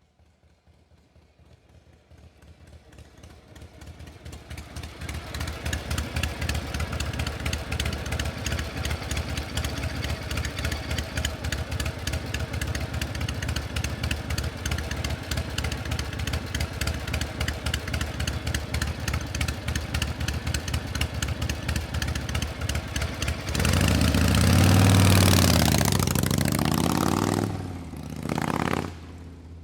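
Running machinery with a fast, even metallic clatter that fades in over the first few seconds and holds steady. Later come a louder surge with rising and falling pitch lasting about four seconds, and a shorter surge near the end.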